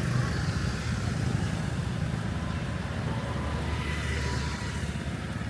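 A motor vehicle's engine running with a steady low rumble, heard over street noise.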